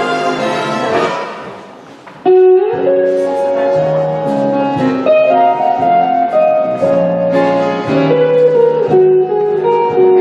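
Recorded ballroom dance music: one track fades out, and a new one starts abruptly about two seconds in and carries on with a steady melody over bass notes.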